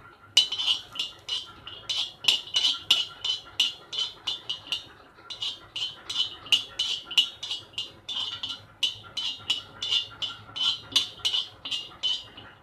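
Metal spatula clinking and scraping on an iron tawa as peanuts are stirred and roasted: quick ringing clinks about three or four times a second, with a short pause about five seconds in.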